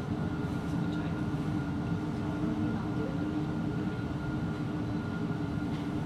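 Steady low machine hum and rumble with two faint steady tones, unchanging throughout.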